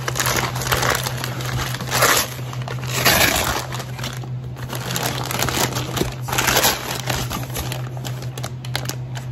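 Brown kraft paper packaging crinkling and rustling as it is handled and pulled out of a cardboard shipping box, in several bursts, over a steady low hum.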